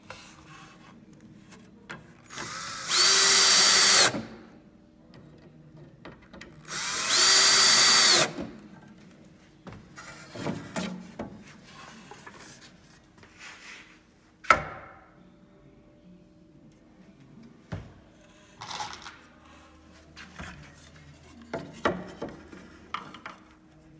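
Power drill driving screws into the bottoms of cedar chair back slats: two runs of about a second and a half each, the motor pitch rising as it speeds up and dropping as it stops. These are followed by lighter knocks and clicks of the wood being handled, with one sharp knock about halfway through.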